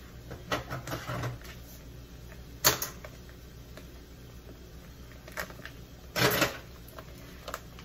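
A package of olives being handled and cut open with a knife: scattered clicks and crinkles, a sharp click about two and a half seconds in, and a louder rustling scrape about six seconds in.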